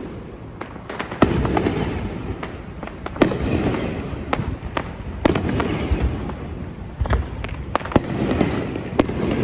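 Fireworks display: sharp bangs of aerial shells every two seconds or so, each followed by a long rolling rumble, with smaller pops and crackling in between.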